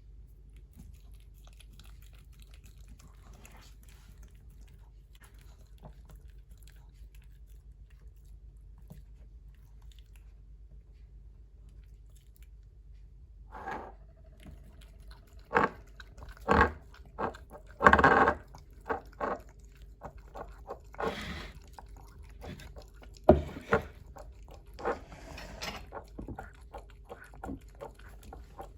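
Pomeranian chewing and crunching food. A quiet stretch comes first, then from about halfway a run of irregular sharp crunches and clicks, some of them loud.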